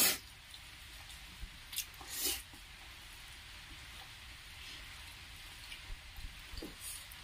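Close-up eating sounds: fingers squishing and mixing rice with chicken curry on steel plates, and mouth sounds of eating. There are a few short, soft, wet noises, the loudest right at the start.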